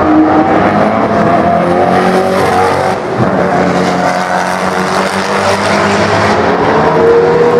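Koenigsegg Agera R's 5.0-litre twin-turbo V8 accelerating hard on track, the engine note climbing and falling as it pulls through the revs, and rising again near the end.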